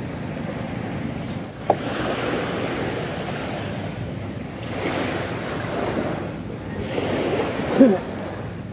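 Surf washing on the beach, swelling and easing, with wind buffeting the microphone. A sharp click about two seconds in and a short voice sound near the end.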